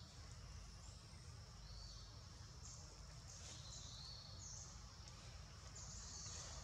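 Faint forest ambience: a low steady rumble under short, high-pitched calls of small wild creatures, repeating about once a second. The macaques themselves make no heard sound.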